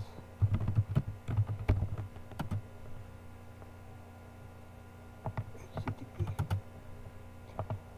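Typing on a computer keyboard: a run of keystrokes in the first couple of seconds, then a pause, then another short run of keystrokes around the middle and a few near the end, over a low steady hum.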